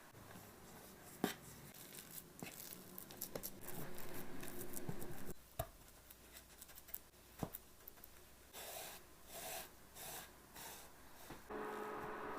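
Hand-working of cinnamon roll dough and utensils: scattered taps, clicks and rustling, with a longer spell of rustling about four seconds in. A steady hum with a few held tones comes in near the end.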